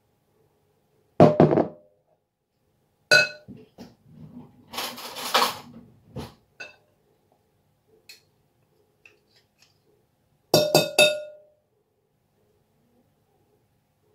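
Metal spoons clinking against a glass mixing bowl and against each other, with a noisy scrape about five seconds in. A few separate clinks come first, and a quick run of three clinks near the end.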